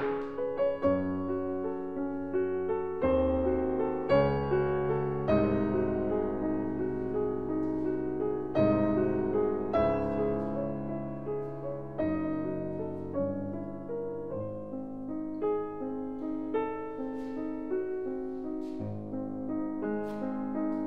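Background piano music: a slow melody over sustained chords, with new notes struck about once a second.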